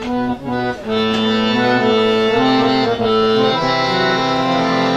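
Harmonium playing an instrumental melody in a qawwali, a few quick short notes in the first second, then longer held notes moving in steps.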